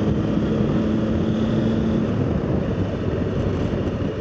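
Motorcycle engine running at road speed while riding, with wind buffeting the bike-mounted microphone.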